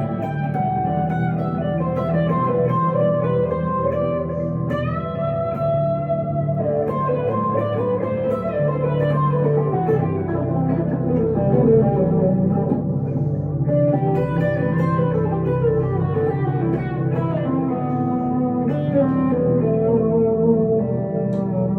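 1962 Gibson Les Paul Custom electric guitar through a Two-Rock Emerald Pro amplifier, playing a slow melodic line with some notes held for a second or more.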